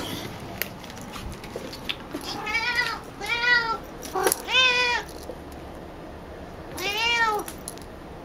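Female tabby cat meowing insistently four times, each call rising then falling in pitch, with a few light clicks and taps between them. The meows are her demand for a ball of brushed-out cat hair held out of her reach.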